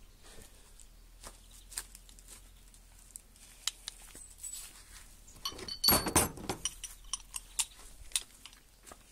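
Scattered small clicks and clinks of metal parts or tools being handled, with a loud burst of clattering clinks about six seconds in.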